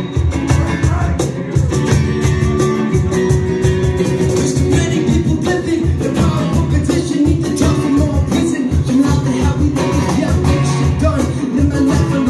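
Live acoustic duo playing an upbeat song: a strummed steel-string acoustic guitar over a steady, fast cajon beat.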